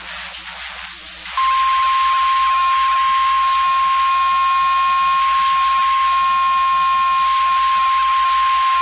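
Faint radio hiss, then about a second and a half in the NOAA Weather Radio warning alarm tone comes on: one steady high tone near 1,050 Hz, held unbroken, the alert that signals a warning is about to be read.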